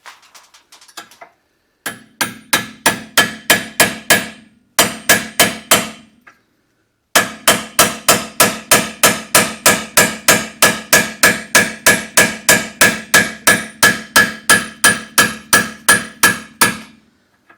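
Hammer striking a steel punch in rapid, even blows, about four a second, to drive out a stuck rear shock absorber mounting bolt. The blows come in three runs with short pauses between them. The last run lasts about ten seconds, and each strike rings metallically.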